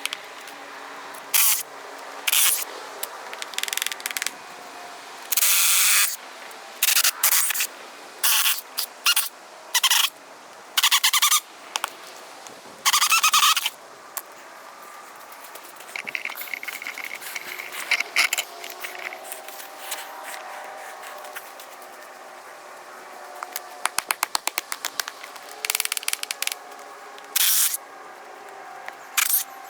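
Noise from stripping wooden form boards and stakes off a cured concrete slab: a string of short, loud, noisy bursts at irregular intervals, with a couple of fast runs of clicks.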